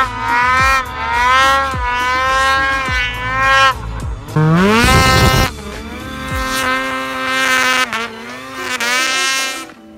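Snowmobile engines revving, their pitch rising and falling again and again, with one sharp climb in pitch about halfway through as a sled is throttled up. The sound drops away just before the end.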